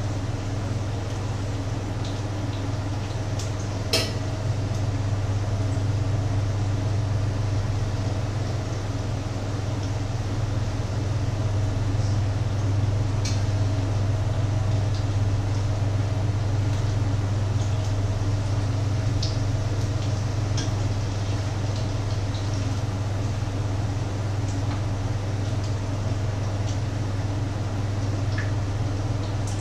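Patties sizzling in a frying pan on the stove over a steady low hum, with a few clinks of a utensil against the pan; the sharpest clink comes about four seconds in.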